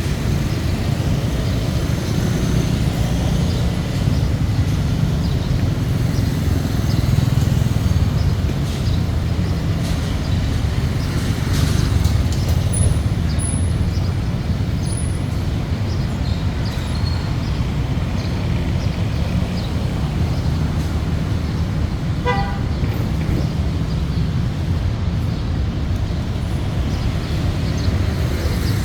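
Steady low rumble of road traffic, with a short horn beep about 22 seconds in.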